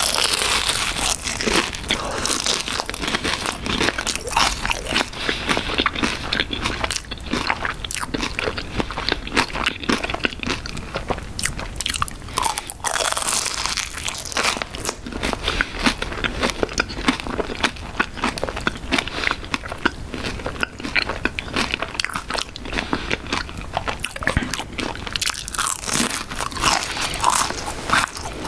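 Biting into and chewing a McDonald's raspberry cream cheese pie with a very crispy crust: a continuous run of crisp crunches and crackles.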